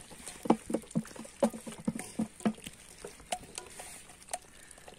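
A heap of live tengra catfish flopping and slapping against each other: an irregular run of short wet knocks and clicks that thins out after about halfway.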